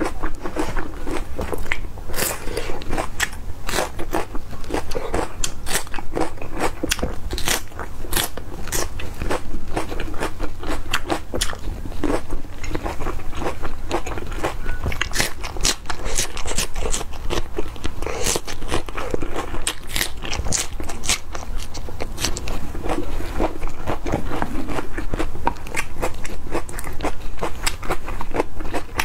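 Close-miked crunching and chewing of crisp raw bitter melon slices: many sharp, crackly bites and chews in quick, irregular succession.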